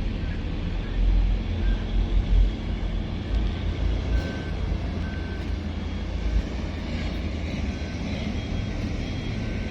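Hitachi 870 excavator's diesel engine running steadily, with loud surges in its rumble during the first few seconds. Faint short beeps repeat about once a second over it, like a machine's travel alarm.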